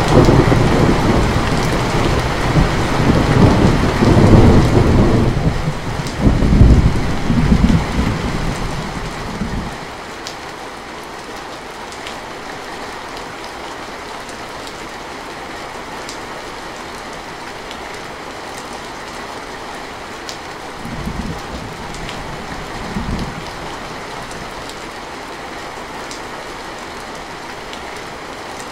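Heavy rain falling steadily on a metal roof. Thunder rumbles loudly for the first ten seconds and then stops, and two short low rumbles of thunder come about three-quarters of the way through.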